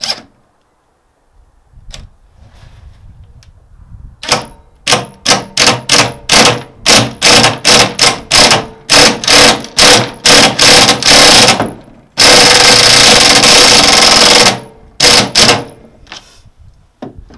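Cordless impact driver driving screws into a jon boat's aluminum hull. It goes in a string of short hammering bursts, about two or three a second, then one unbroken run of about two seconds, then a few more short bursts.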